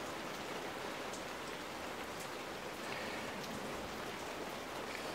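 Steady, faint hiss of background noise, with a few soft ticks.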